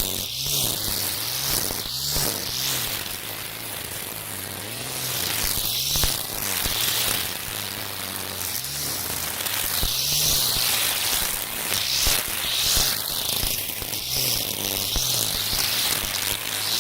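Makita 40V battery string trimmer spinning Oregon Flexiblade nylon line through tall weeds: the motor's hum dips and rises as the line bites, with a swishing sweep every few seconds.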